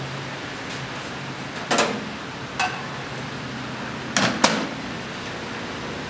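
Handling noises at a countertop microwave: a knock a little under two seconds in, a shorter knock about a second later, and two sharp clicks close together about four seconds in, the loudest of the lot. A low steady hum runs underneath.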